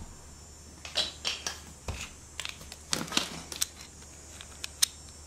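Hard plastic marble-run pieces clicking and tapping together as they are handled and fitted into a 3D-printed tile: a scatter of light, irregular clicks.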